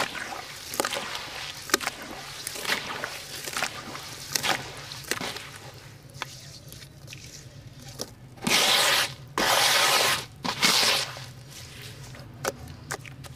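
Wet sand-cement slurry squished and crumbled by hand in a pan of water: short squelching and crunching sounds. Later come three louder, longer swishes of the watery mix.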